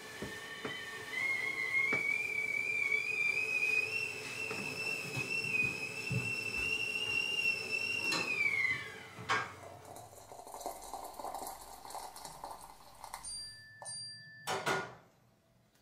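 Stovetop kettle whistling. The pitch climbs over the first couple of seconds, holds steady, then slides down and dies away about eight and a half seconds in. Light kitchen clatter follows, with a sharp knock near the end.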